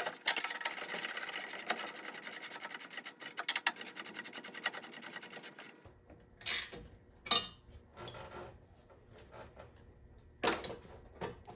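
Ratchet wrench clicking rapidly and evenly, about ten clicks a second, while tightening a nut on the oil cooler's U-bolt mount. It stops about six seconds in, and a few separate metallic knocks and clinks follow.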